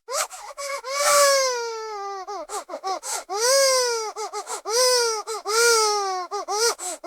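Toddler crying: a long wail of about two seconds with a falling pitch, then a run of shorter, falling cries broken by quick catches of breath.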